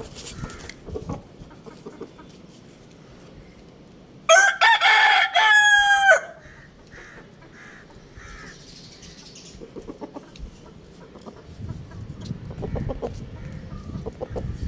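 A rooster crowing once: a loud call lasting about two seconds, starting about four seconds in, with fainter scattered sounds before and after it.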